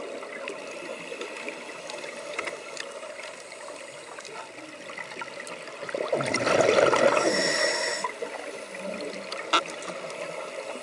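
Scuba diving underwater: a diver breathes through a regulator, with one loud burst of exhaled bubbles about six seconds in, over a steady underwater hiss and crackle. A sharp click comes near the end.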